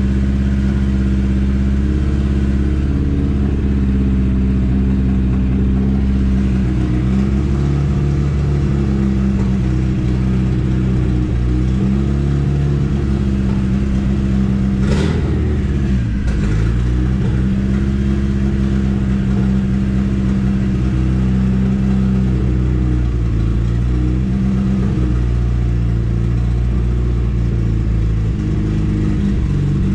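Turbocharged Honda D16Z6 single-cam four-cylinder running at a steady idle, a little choppy, with its injector dead times and ignition timing not yet tuned. A sharp click about halfway through.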